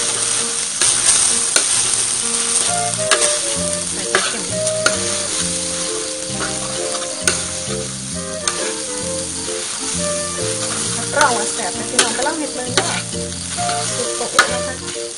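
Minced pork and salted egg sizzling in a hot wok while a spatula stirs and scrapes through it, with frequent sharp clicks of the spatula against the pan.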